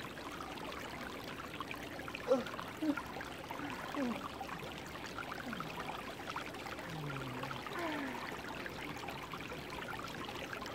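Shallow rocky creek trickling and gurgling, a steady flowing-water sound.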